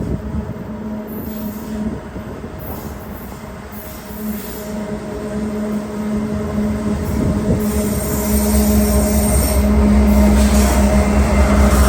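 CSX freight train with its diesel locomotive approaching, the engine drone and rumble growing steadily louder, with thin high-pitched wheel squeal from about eight seconds in.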